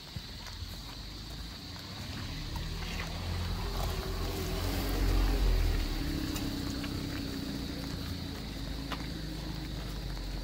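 A Toyota Vios sedan drives up from behind at low speed and passes close by, its engine and tyres growing loudest about five seconds in. It then runs on steadily just ahead.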